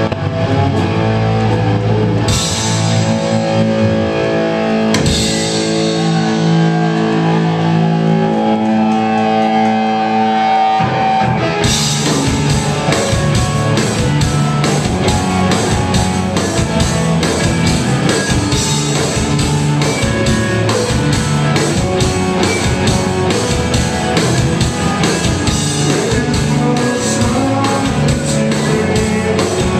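Live rock band playing: ringing electric guitar chords with two cymbal crashes, then the full band of drums, bass and guitars comes in about eleven seconds in and plays on at a steady rock beat.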